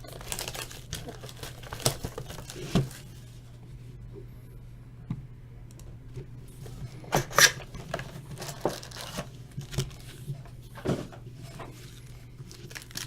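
Plastic wrapper on a sealed box of trading cards torn and crinkled by hand: scattered rustling and sharp crackles, quieter for a few seconds in the middle.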